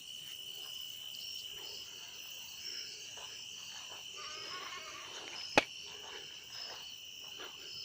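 Crickets chirring in a steady, high chorus, with one sharp click about five and a half seconds in.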